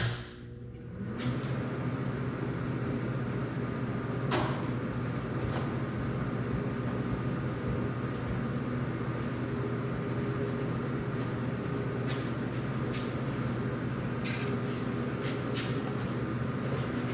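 A click, then about a second later a TIG welding machine starts up and runs with a steady electrical hum and low buzz, with a few light clicks and knocks over it.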